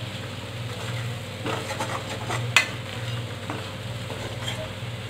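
Steel spoon stirring and scraping green chillies in a thick besan-and-curd masala in a steel kadai, over a steady sizzle as the last of the curd's moisture cooks off. Several clinks of the spoon against the pan come in a cluster, the sharpest about two and a half seconds in.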